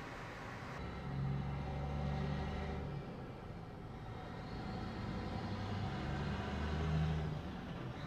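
Cars driving past on a street, with engine hum and tyre noise. One passes from about a second in to three seconds, and another builds to its loudest near the end.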